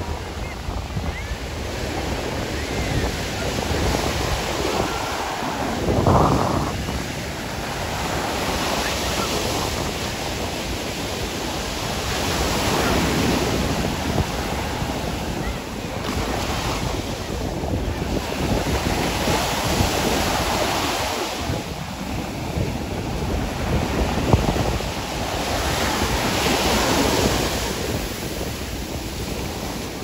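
Ocean surf breaking on a sandy beach, the wash swelling and falling back every few seconds, with wind buffeting the microphone.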